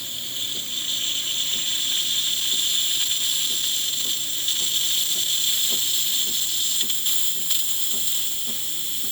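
DeLonghi Perfecta espresso machine starting its steam function: a steady hiss from the steam spout, with the water pump pulsing in small irregular ticks, as the machine gets up to steam pressure.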